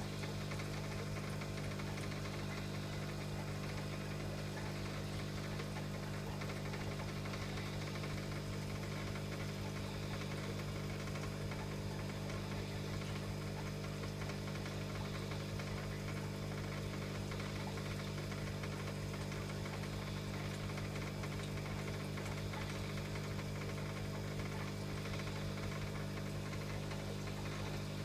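Steady low electrical hum of an aquarium pump, made of several even tones that do not change.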